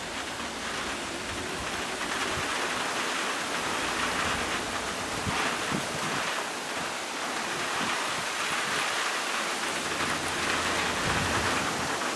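Rain falling in a steady hiss, growing a little heavier about two seconds in.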